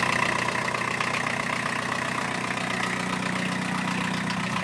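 1989 Volkswagen Caddy pickup's 1.6-litre diesel engine idling steadily.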